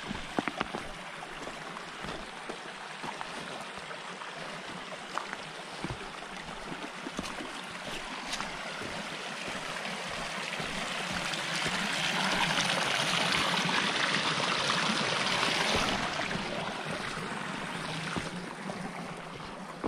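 Shallow stream trickling over stones, growing louder for a few seconds past the middle and then easing off, with occasional footsteps scuffing on loose rocks.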